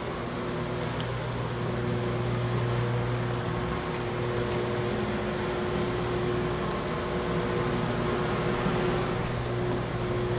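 Steady mechanical hum with a constant low drone and a higher steady tone, unchanging throughout.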